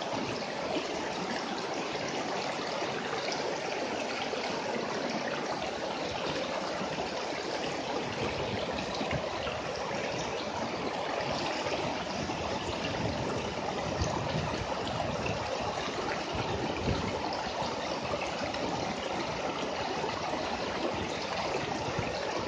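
River water rushing steadily over rocks through shallow rapids.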